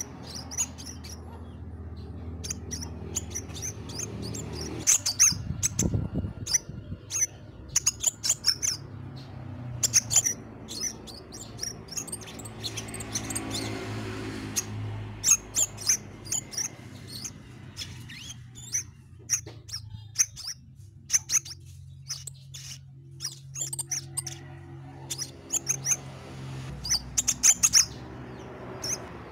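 Crimson sunbird singing in full voice: quick clusters of short, very high-pitched chirping notes, coming every second or two.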